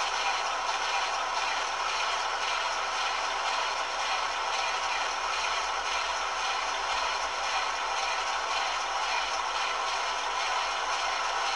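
Doxford Seahorse opposed-piston marine oil engine running, a steady fast mechanical clatter with little bass, as on an old 16mm film soundtrack.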